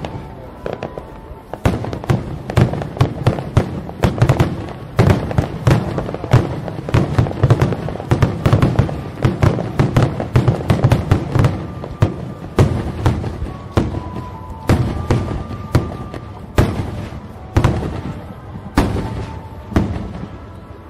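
Aerial fireworks shells bursting: a dense, rapid run of bangs for about ten seconds, then bangs spaced more widely apart.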